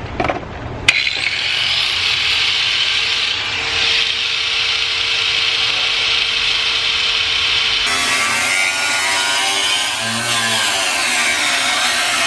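A power saw cutting through the car's front fender, running steadily. It starts sharply about a second in, and its note changes abruptly and wavers up and down from about eight seconds in.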